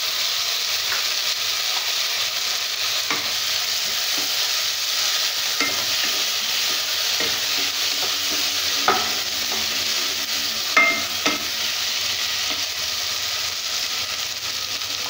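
Onions and freshly added chopped tomatoes sizzling in hot oil in a frying pan, stirred with a wooden spatula that scrapes and knocks against the pan now and then. The louder knocks come about nine and eleven seconds in.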